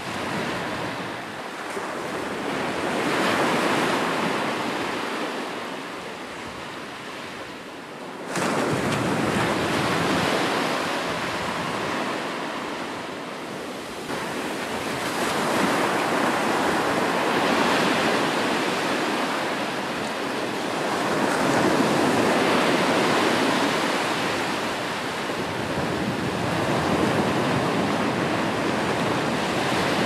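Ocean surf: waves breaking and washing in as a steady rushing noise that swells and eases every few seconds. There is an abrupt jump in loudness about eight seconds in.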